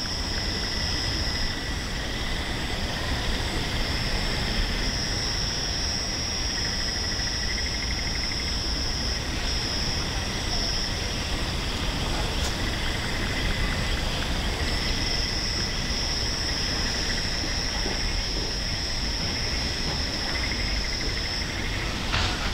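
Insects trilling: a high, steady trill that cuts out and resumes several times over a fainter pulsing trill lower down, above a steady low rumble.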